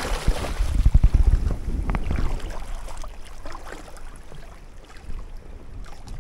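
Splashing and sloshing of shallow lake water around a carp being released back into the water, with low wind rumble on the microphone that is strongest about a second in.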